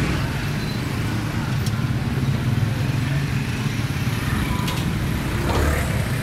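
Steady low rumble of street traffic and vehicle engines, with a few faint clicks.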